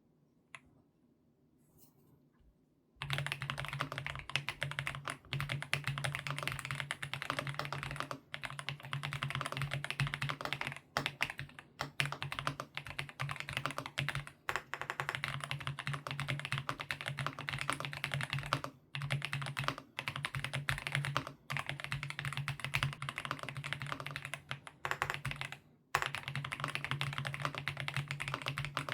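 Typing on a mechanical keyboard fitted with GGBOY Matcha Green linear switches (40 g, POM and PA66 housings): rapid, continuous keystroke clatter that starts about three seconds in, broken by a few brief pauses.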